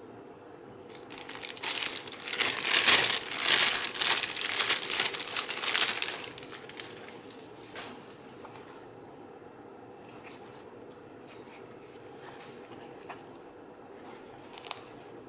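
Clear plastic bag crinkling as it is opened and a soft carrying case is pulled out: a dense run of rustles lasting several seconds. After that come only faint handling sounds, with a single click near the end.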